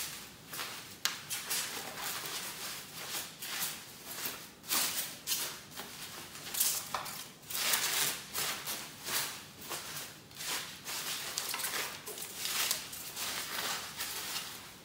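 Plastic bubble-wrap packaging crinkling and rustling in irregular crackling bursts as it is handled and pulled open.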